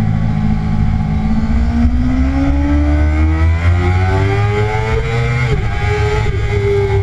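2009 Kawasaki ZX-6R's inline-four engine under hard acceleration: the revs hold for a couple of seconds, then climb steadily in second gear. About five and a half seconds in, a quick upshift to third drops the pitch.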